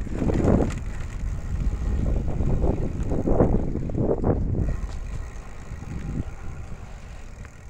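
Wind buffeting the microphone: a low, uneven rumble with gusty surges during the first half, easing off near the end.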